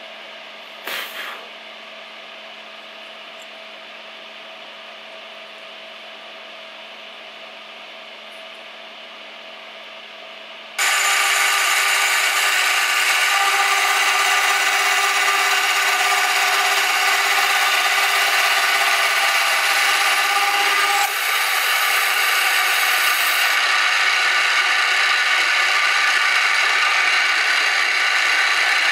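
Benchtop milling machine running with a slitting saw, with a short clatter about a second in as the aluminium part is set in the vise. About 11 seconds in the saw bites into the finned aluminium heatsink tube and a much louder, steady cutting noise with many high tones takes over.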